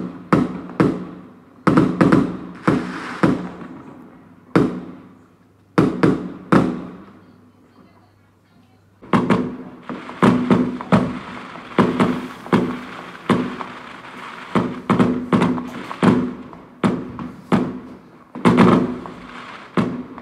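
Aerial fireworks exploding: a string of loud bangs, each with a short echoing tail. They thin out about seven seconds in, and from about nine seconds a denser barrage of bangs with crackling follows.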